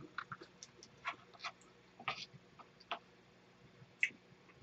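Faint eating sounds: scattered soft clicks and taps from a spoon scooping fried rice out of a frying pan into a bowl, mixed with chewing and mouth clicks. The strongest click comes about four seconds in.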